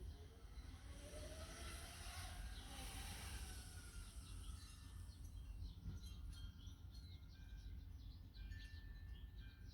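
Small birds chirping and calling over a steady low rumble, with a broad whooshing swell between about one and four seconds in.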